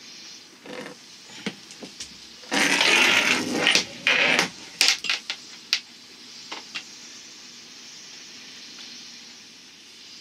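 Braided sailing line being hauled through a small block shackled to the lifeline: a loud rush of rope running over the sheave for about two seconds, then a string of sharp clacks from the block and its shackle as the twisted line snags and jerks.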